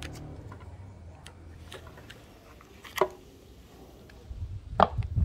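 Paper masking tape being pressed and smoothed onto a metal axe head by hand, a soft rustle, with two sharp clicks or knocks, one about three seconds in and a louder one near the end.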